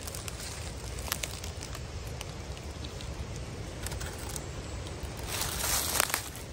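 Dry leaf litter crackling and rustling, with a low rumble underneath and a louder crunch of leaves about five and a half seconds in.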